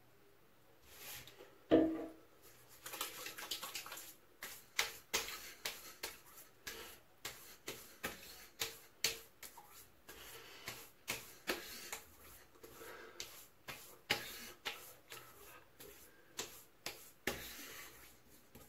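Hands slapping and patting aftershave onto a freshly shaved, wet face and neck: a long run of short, irregular pats, about two a second. There is a single louder knock near two seconds in.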